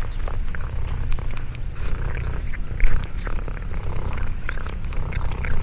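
Domestic cat purring: a steady low rumble, with scattered light clicks over it.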